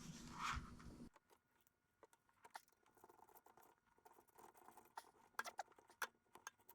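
Near silence, with a few faint short clicks or taps late on.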